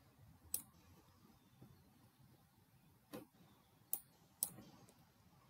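Computer mouse clicking four times over quiet room tone: one click about half a second in, then three close together a little past three seconds in.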